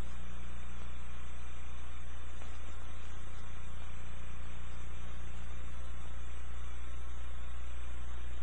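Steady low electrical hum with a faint even hiss, unchanging throughout: background hum on the videotape's soundtrack, with no live sound from the scene.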